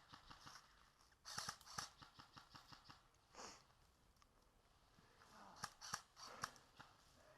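Faint footsteps and scuffing of a player moving on foot, in two short runs of quick steps: one about a second in and another near six seconds.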